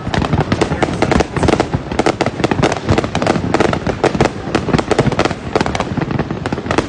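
A dense, unbroken barrage of fireworks and firecracker bangs, many per second and overlapping, with no let-up.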